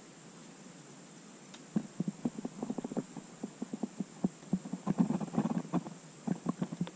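Rapid, irregular small knocks and clicks from a baitcasting reel, rod and kayak being handled while fishing. They start about two seconds in and get busier and louder toward the end.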